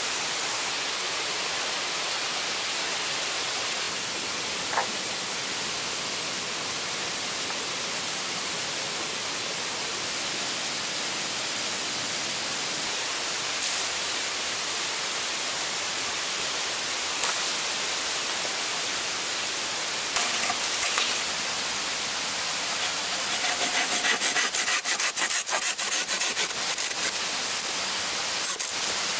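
Steady rush of flowing water, with a few scattered snaps and knocks. From about three-quarters of the way in, a hand pruning saw cuts through a green bamboo pole in rapid back-and-forth strokes.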